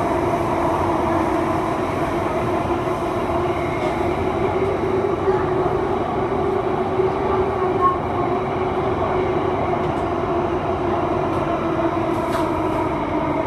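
Singapore MRT Circle Line train running through an underground tunnel, heard from inside the car: a steady rumble of wheels on rail with a steady motor hum.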